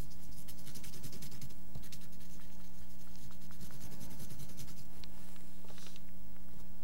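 Oil pastel stick scratching and rubbing across paper in quick repeated strokes, over a steady low hum.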